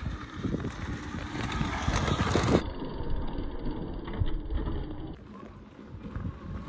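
Wind buffeting the microphone and tyre noise from an electric motorbike being ridden, in uneven gusts.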